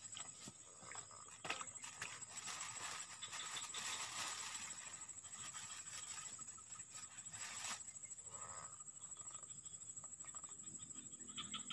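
Faint outdoor ambience of insects: a steady high-pitched insect drone, with short pulsing trills now and then and one near the end. A few light clicks and a stretch of soft rustling come in the middle.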